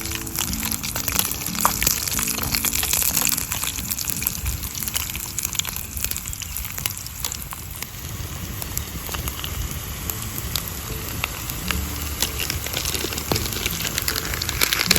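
Food frying in a pan over a wood campfire: a steady sizzle with many sharp crackles and pops.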